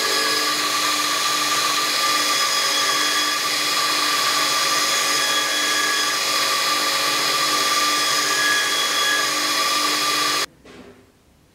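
Belt grinder running steadily with a whine over a hiss, as the curved metal D-shaped guard of a bowie knife is ground against the abrasive belt. The sound cuts off suddenly about ten and a half seconds in.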